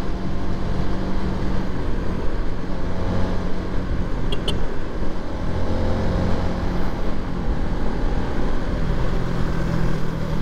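Honda motorcycle engine running at a steady cruise, with rushing wind on the helmet microphone and tyre hiss on a wet road.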